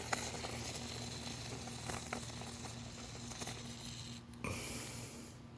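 Aerosol can of expanding foam sealant spraying, a steady hiss with a few small clicks, cut off briefly about four seconds in and again near the end as the spray is paused.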